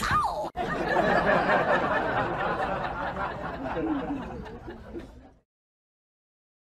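People chuckling and laughing with a little chatter, after a brief rising-and-falling squeal at the very start. The sound cuts off abruptly about five seconds in.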